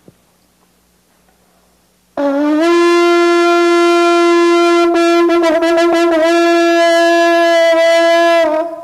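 Conch shell trumpet, its top broken off to form the mouthpiece, blown in one long, steady note lasting about six seconds. The note starts about two seconds in and wavers slightly in pitch around the middle.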